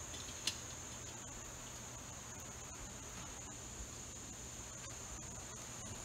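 Steady, high-pitched chorus of insects in the woods, with a single sharp click about half a second in.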